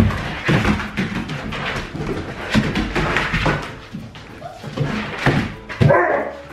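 Siberian huskies, an adult and six-week-old puppies, playing rough on a tiled floor: irregular thuds and claw scrabbles, with a louder dog vocal sound near the end.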